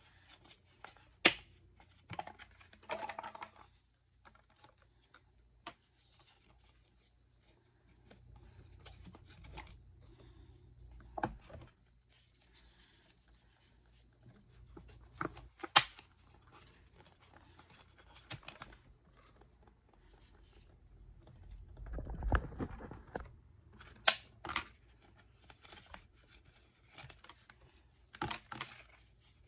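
Intermittent handling sounds of a plastic bottle and foam craft pieces on a desk: a few sharp taps and knocks, with soft rustling and brief low rumbles in between.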